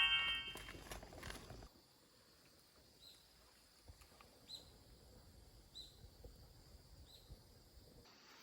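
Faint high chirps from a small animal, repeating about once every second and a half over a quiet, steady outdoor background. A louder sound fades away during the first second or so.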